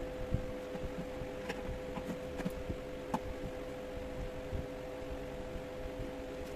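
Steady hum with a few scattered faint clicks and taps.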